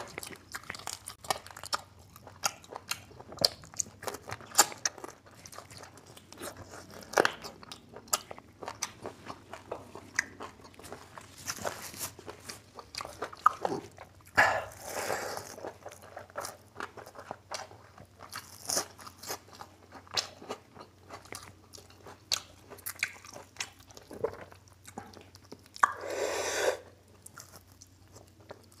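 Close-up mukbang eating sounds: chewing and crunching a mouthful of rice with crisp fried strands and mutton curry, many small crunches and wet mouth clicks. Twice, about halfway and near the end, there is a longer noisy sound of about a second.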